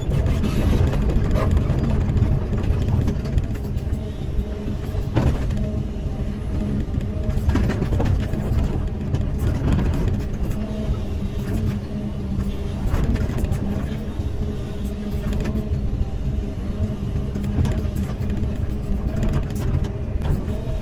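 Caterpillar 320E excavator's diesel engine running steadily under load as the bucket digs and scrapes through stony soil, heard from the cab, with scattered knocks and scrapes of the steel bucket against stones.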